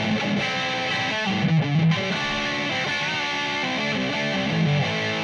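Music: a distorted electric guitar playing a riff with a few bent notes.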